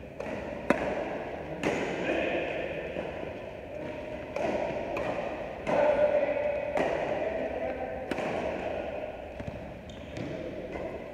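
Badminton rally: racket strings striking a shuttlecock, about ten sharp smacks roughly a second apart, over steady background noise.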